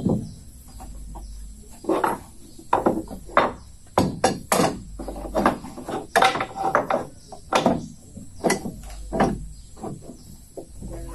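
Irregular series of sharp knocks on wood, about one a second at uneven spacing, from hand-tool work on the boat's timber.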